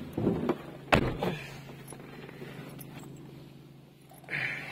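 A car door shut with a single loud thump about a second in, then the car running with a steady low hum inside the cabin, and a short rustle near the end.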